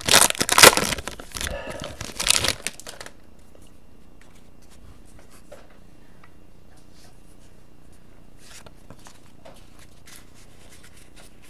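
Foil trading-card pack wrapper torn open and crinkled for about three seconds, then faint light ticks and rustles as the stack of cards is handled.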